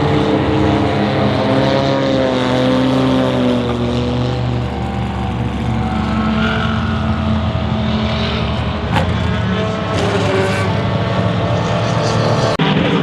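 Several race car engines running at speed, the engine notes sliding down in pitch as cars go by. There is a brief dropout near the end.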